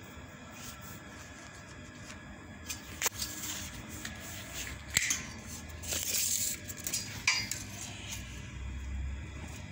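Scattered light metallic clinks and knocks from a steel-tube trolley frame being handled, with a brief scrape in the middle.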